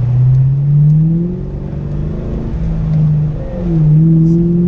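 2004 Ford Mustang GT's V8 engine pulling hard under acceleration, its pitch climbing, dropping back at a gear change and climbing again.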